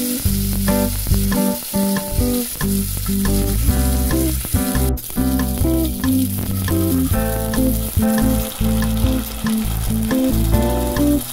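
Curry leaves and dried red chilli sizzling in hot oil, a steady crackling hiss, with background music playing over it.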